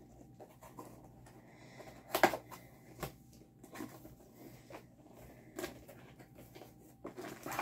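Paper and kit packaging being handled: light rustling and scattered soft knocks, the sharpest one about two seconds in.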